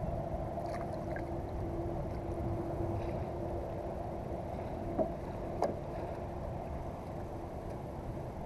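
Water and wind noise around a small kayak, with a faint steady hum and two short sharp knocks a little over halfway through.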